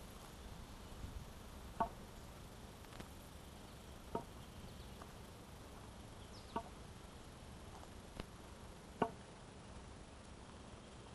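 Sharp short taps at a steady walking pace, about one every two and a half seconds, over a faint outdoor background. A faint high falling chirp comes about midway.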